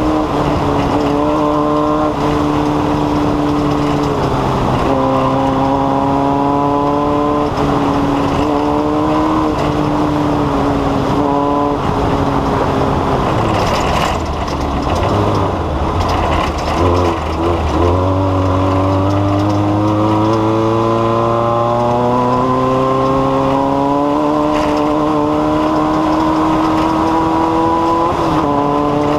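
Race car engine running hard, its pitch climbing slowly and dropping back several times, with one long climb of about ten seconds late on.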